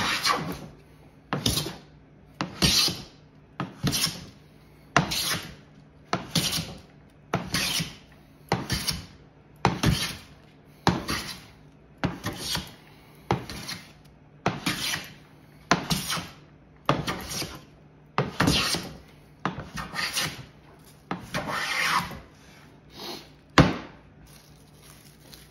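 A restored 1933 Stanley No. 5 hand plane taking repeated strokes along a wooden board: each pass is a short shearing swish as the iron lifts a shaving, about one stroke a second, some twenty in all, stopping shortly before the end.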